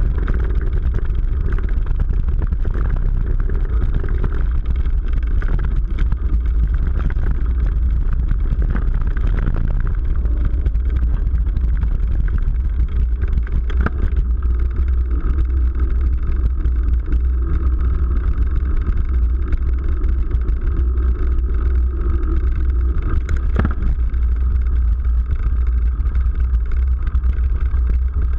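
Mountain bike descending a dirt trail, heard on a GoPro: a steady, loud low rumble of wind and tyres on the camera's microphone, with a couple of sharp knocks about halfway through and again near the end.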